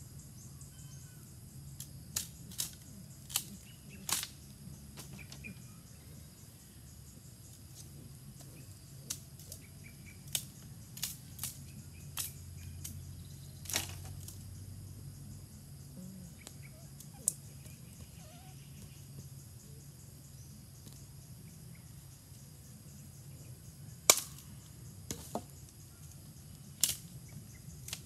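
Wood fire crackling under a green bamboo cooking tube, with scattered sharp pops at irregular intervals, the sharpest a few seconds before the end.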